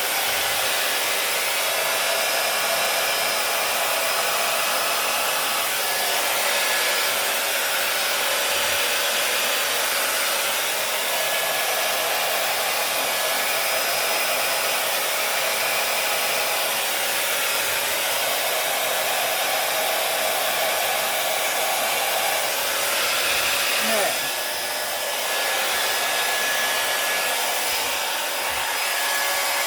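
Hair dryer with a flat-faced nozzle attachment blowing steadily, its sound dipping briefly about two-thirds of the way through as it is moved.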